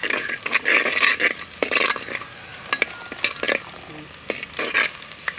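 Chopped small onions sizzling in hot oil in a clay pot, stirred with a steel ladle in repeated strokes, with a few sharp knocks of the ladle against the pot.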